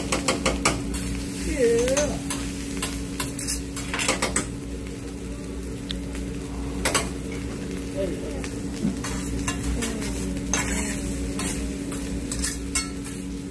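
Metal spatulas clacking and scraping on a teppanyaki griddle, with sharp clacks in clusters, while fried rice sizzles on the hot plate over a steady hum.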